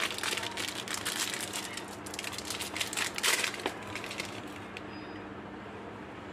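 Dry, powdery coconut candy balls being broken open and crumbled between the fingers: dense crackly crunching, busiest in the first three and a half seconds and thinning to a few small crackles near the end.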